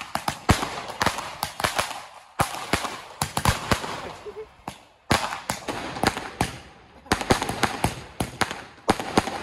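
A large multi-shot Diwali firecracker going off in a rapid, irregular run of sharp bangs, with short lulls between clusters.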